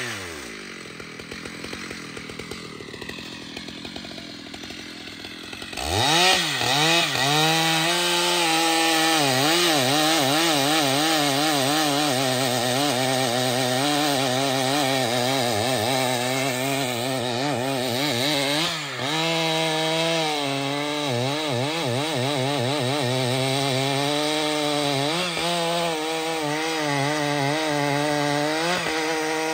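Large two-stroke chainsaw dropping to a low idle, then revved sharply up about six seconds in and held near full throttle. Its pitch wavers up and down as the chain cuts into the trembesi (rain tree) trunk, with brief dips near the middle and later on.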